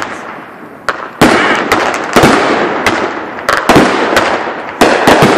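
Consumer fireworks going off. After a lull in the first second comes a rapid, irregular string of sharp bangs, each followed by crackling.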